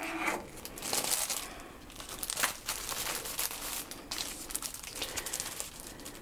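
A clear plastic sleeve and folded crepe paper crinkling and rustling as the paper is worked out of its wrapping by hand, in uneven crackles.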